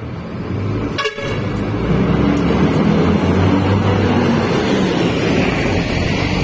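Cummins ISM 420 six-cylinder diesel of a BLK JXK6151 coach pulling away under power, loud and low, swelling from about two seconds in. A brief sharp sound cuts in about a second in.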